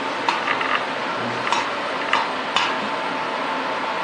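A handful of sharp clicks and light knocks from handling: one, then a quick run of three small clicks, then three more single clicks spread over the next two seconds, over a steady faint background hiss and hum.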